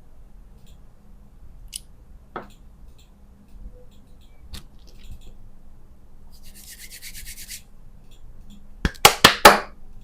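Plastic candy packaging being handled. There are scattered small clicks, then a brief fast ratcheting rattle in the middle, and a quick cluster of four loud, sharp plastic cracks near the end.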